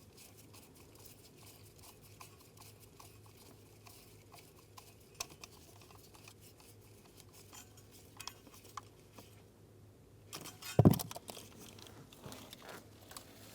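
Faint, irregular small clicks of a hand tool and metal parts while a T15 Torx mounting screw is driven into a replacement ignition switch on the steering column, with one sharp knock near the end.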